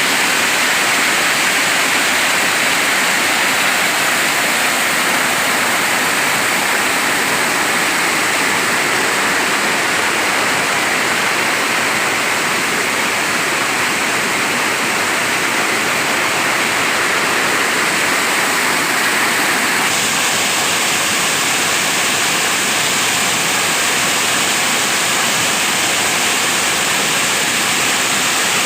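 Waterfall: water falling and rushing in a steady, loud roar, its tone shifting slightly about twenty seconds in.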